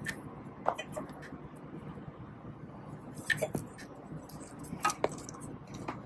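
A few sharp clicks and light knocks in loose pairs, from hands handling plastic wiring-harness connectors among the metal hydraulic solenoids, over a steady background hiss.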